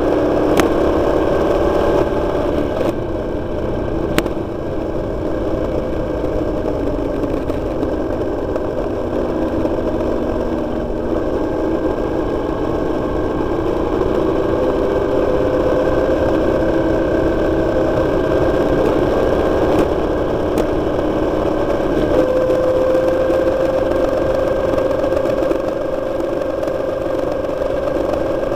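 Motorcycle engine running while riding, its note rising and falling with the throttle through the bends, over a rush of road and wind noise.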